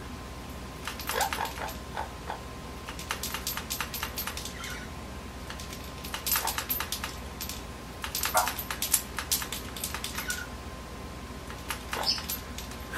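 Amazon parrot's beak clicking and tapping on a hanging cage toy and its plastic rings, in bursts of quick clicks every second or two. A couple of short falling squeaks come from the bird between the bursts.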